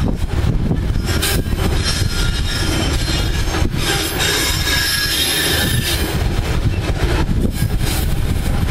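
Freight wagons of a long diesel-hauled train rolling past close by: a steady heavy rumble and rattle of steel wheels on the rails, with repeated clatters. Thin high-pitched wheel squeal comes through about halfway.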